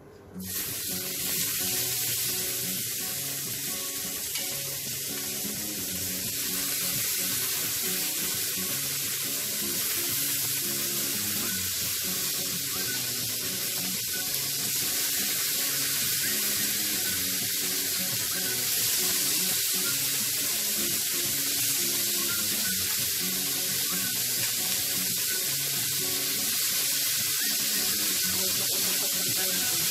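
Shrimp sizzling in oil on a very hot sizzling plate: a loud, steady hiss that starts abruptly as the first shrimp goes down and keeps up as more are added.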